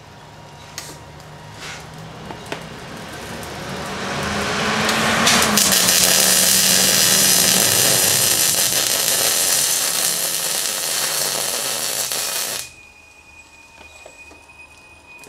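MIG welding arc laying a bead on a horse-drawn buggy axle: a crackling sizzle grows over the first few seconds, holds for about seven seconds, then cuts off suddenly when the trigger is released.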